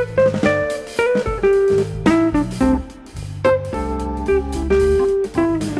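Background music: plucked guitar melody over a bass line, in a light jazzy style.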